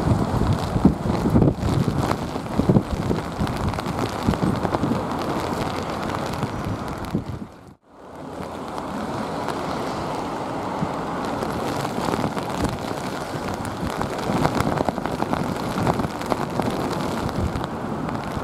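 Strong gusty storm wind buffeting the microphone, with rain and the rumble of jet airliner engines. The sound drops out for a moment about eight seconds in, then continues as a steadier rush.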